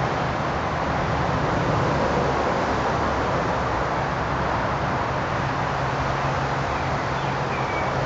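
Steady outdoor background noise with a low hum underneath, like a distant traffic rumble. A faint short chirp comes near the end.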